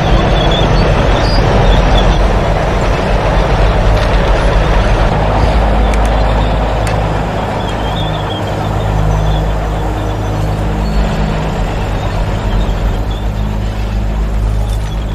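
Deep, steady engine rumble of a heavy machine, loudest in the first few seconds and easing a little around the middle.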